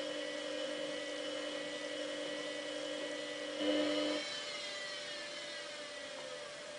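Samsung WF8804RPA washing machine's drum motor running with a steady whine as it turns the drum to sense the size of the load. About four seconds in the drive cuts and the whine falls in pitch as the drum coasts down.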